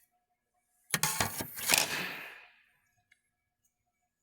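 A burst of rustling and clattering, as of small parts being handled on a workbench, starting about a second in and dying away within two seconds.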